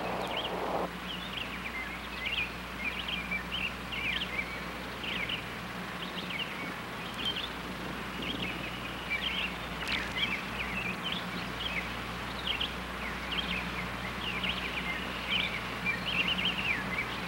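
Small birds chirping busily throughout, over a steady low hum. A band of noise cuts off about a second in.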